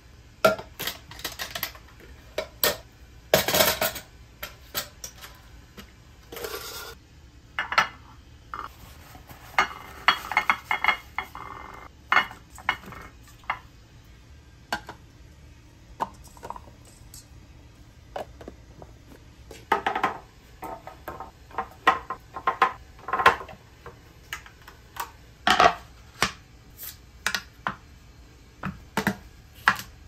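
Clear plastic food containers and produce being handled and set down on a stone countertop: an irregular run of sharp clicks, knocks and rattles with quiet gaps between, the loudest a short rattle about three and a half seconds in.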